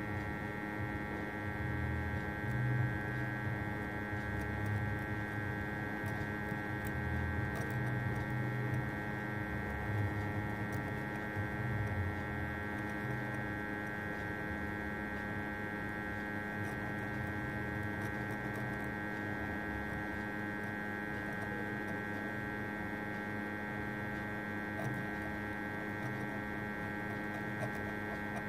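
Steady electrical hum with a fixed whine from a hot-air rework station blowing on a phone circuit board, set to half heat to soften the underfill paste around the chip. A low fluttering rumble runs under it for about the first half, then dies down.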